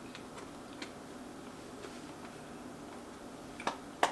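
Quiet eating sounds: scattered faint clicks and smacks from people chewing and handling pizza, with two sharper clicks near the end, over a steady low hum.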